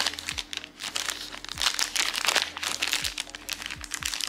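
A thin clear plastic zip bag crinkling and crackling as fingers handle it and pull it open, in quick irregular crackles.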